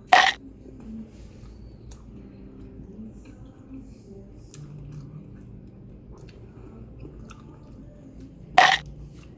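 A person chewing a mouthful of sushi, with two short loud noisy sounds, one at the start and one near the end.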